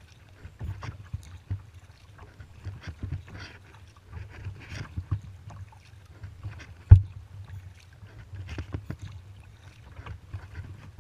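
Kayak paddle strokes: the blades dipping and splashing with irregular drips and small clicks of water, over a low rumble. A single sharp knock about seven seconds in is the loudest sound.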